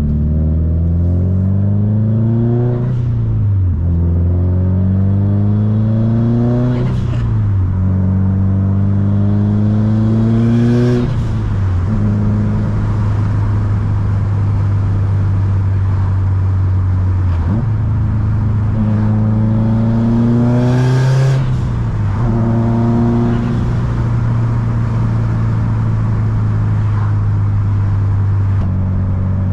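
Subaru WRX STI's turbocharged flat-four engine pulling through the gears: the pitch climbs and drops back at upshifts about 3, 7 and 11 seconds in, with a short hiss at the shifts. It then holds a steady pitch while cruising, before another climb and shift about 21 seconds in.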